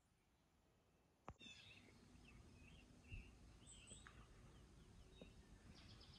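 Near silence for about a second, then a click, then faint, scattered bird chirps over quiet outdoor background.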